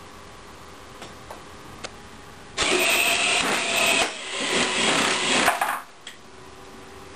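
Electric drive motors and gearboxes of a small four-wheeled robot rover whining as it drives across a concrete floor. They run in two stretches of about a second and a half each, starting about two and a half seconds in, and stop suddenly about six seconds in.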